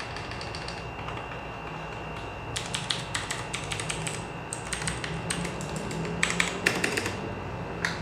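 Clicky Outemu Blue mechanical key switches on a Redragon K586 Brahma keyboard being pressed: a few light presses at the start, then fast runs of sharp clicking keystrokes from about two and a half seconds in, loudest near the end.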